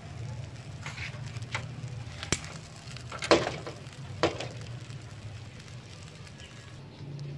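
Pieces of pig head grilling on a wire rack over charcoal: a faint sizzle with a few sharp crackling pops, the loudest a little over three seconds in, over a low steady hum.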